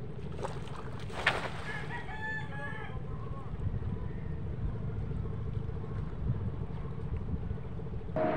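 A single drawn-out animal call lasting about a second, about two seconds in, over a steady low rumble, with a sharp knock just before it.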